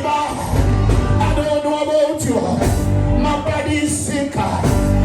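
Gospel music in a church service: voices singing over a band with a heavy bass line.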